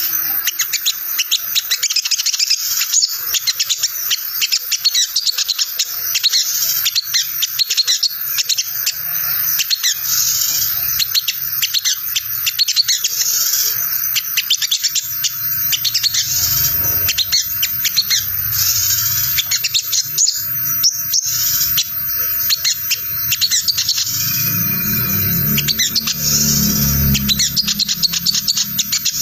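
Olive-backed sunbird (sogon) giving its fast, continuous twittering chatter, the 'ngriwik' call, in a jumbled run of quick high chirps. It is used as a lure call to make other sunbirds answer and sing.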